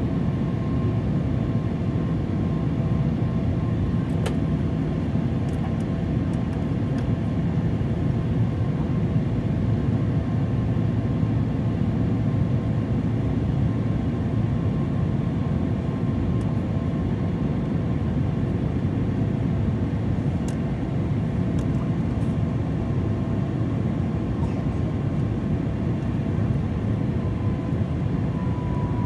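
Jet airliner cabin noise on descent: the steady rumble of the turbofan engines and airflow, with a few faint steady engine tones. One tone slides slightly lower near the end.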